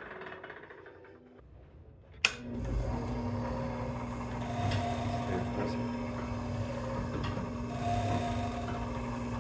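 A click about two seconds in, then a small electric motor in an interactive museum exhibit running with a steady hum.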